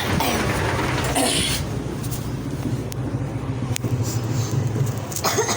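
A vehicle engine running steadily with a low hum, with a couple of brief hissy noises over it.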